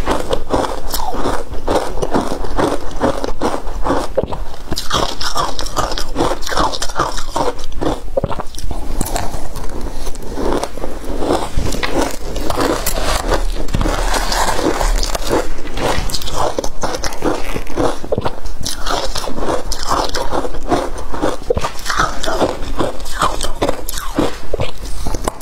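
Close-miked crunching of hard frozen matcha and coloured ice being bitten and chewed, dense rapid crunches throughout, with a metal spoon scraping the ice in the bowl.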